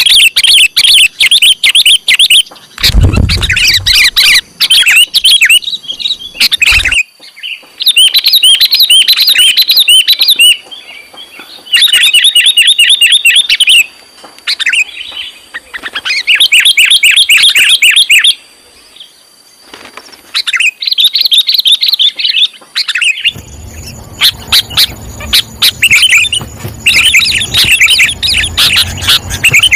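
Sooty-headed bulbul (kutilang) calling in repeated bursts of rapid chirps, each burst lasting one to two seconds with short pauses between. This is the kutilang's lure call (suara pikat), used to draw in wild bulbuls. A low rumble comes about three seconds in.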